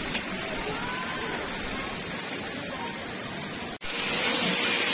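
Steady rushing and splashing of water pouring from a long row of stone-wall spouts onto wet stone, the temple's 108 water streams. It runs louder after a sudden cut about four seconds in.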